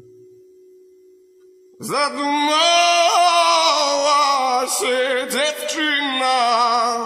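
Music from a slow rock ballad. After a near-pause of about two seconds, a high wordless sung melody with vibrato comes in and carries on with pitch glides.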